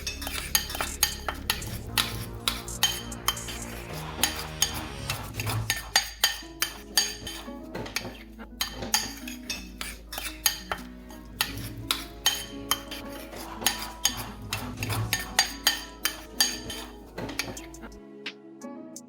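A utensil clinking and scraping against a bowl over and over, about two or three strikes a second, as when stirring a mixture, with background music underneath.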